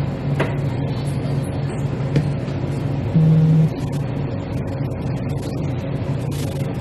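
A steady low background hum, with a brief louder low tone lasting about half a second near the middle and a couple of faint clicks.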